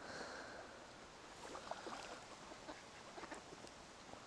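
Faint splashing of water from a hooked mirror carp fighting at the surface close to the bank, with a few light clicks and splashes.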